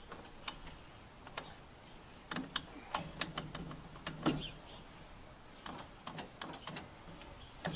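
Irregular metallic clicks and clinks of hand tools and steel parts being handled, in two short flurries about two to four seconds in and again near six seconds.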